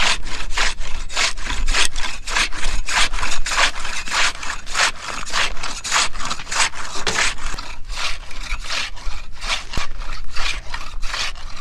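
Long-handled hand ice saw cutting through lake ice, its teeth rasping on each stroke at a steady pace of about three strokes a second.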